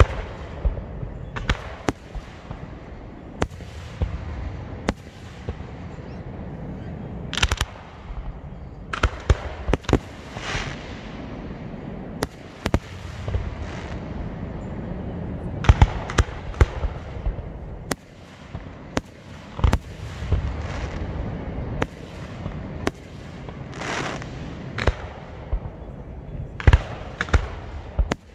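Aerial fireworks display: shells bursting in a steady run of sharp bangs at irregular intervals, some in quick clusters, over a continuous low rumble. The loudest bursts come about halfway through and again near the end.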